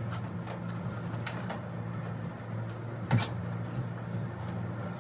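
Scattered clicks and knocks of hand tools working on the M156 V8 engine, with one louder clank about three seconds in, over a steady low hum.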